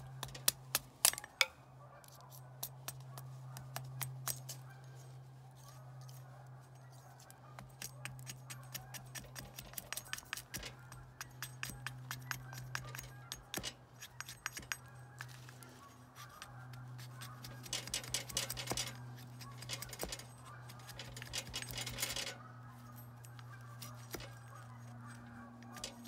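Tomahawk blade chopping and shaving a stick of kindling on a wooden stump: a few sharp chops about a second in, then quick light knocks and scraping as curls of wood are carved off, with denser scraping near the end.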